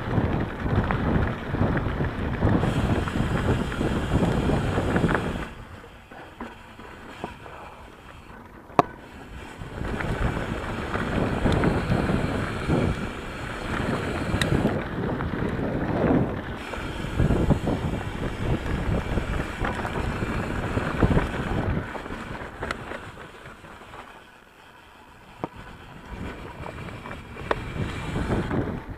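Wind buffeting an action camera's microphone on a mountain bike riding a dirt trail, mixed with tyre rumble and small rattles and clicks from the bike. The rushing eases off twice, about six seconds in and again near the end.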